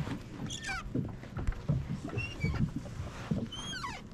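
Handling noise on a fishing kayak as line is hauled in by hand: irregular low knocks and thumps against the hull, with two short squeaks sliding down in pitch, one about half a second in and one near the end.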